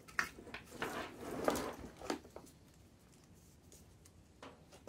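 A 1976 Triumph TR7 wiring loom being handled by hand: bundles of wire and plastic connectors rustling and clicking against each other for about two seconds, then a single click near the end.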